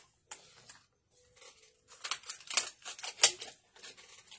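Small objects handled on a craft table, most likely a superglue tube in its plastic-and-card blister pack being handled and set down: a run of sharp crackles and clicks, busiest in the second half.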